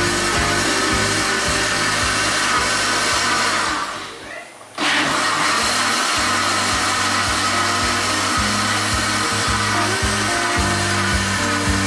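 Philips electric blender running, blending papaya chunks into juice with a steady motor whirr. About four seconds in the sound fades and drops out for under a second, then comes straight back.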